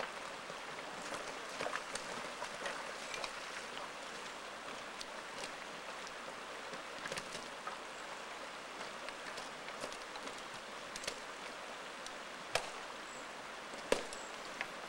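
Steady rush of flowing river water, with scattered sharp clicks of stones knocking on the rocky gravel bar, the loudest two near the end.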